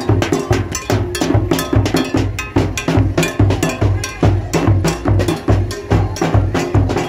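Street carnival drumming: a large drum and a snare-type drum struck with sticks on a steady, driving beat, about two strokes a second, with sharper cracking hits between the deep thuds.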